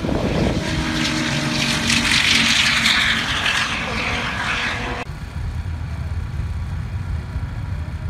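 Race cars running flat out down an airstrip, a loud rushing engine and exhaust noise that builds over the first three seconds and cuts off abruptly about five seconds in, leaving a low steady rumble.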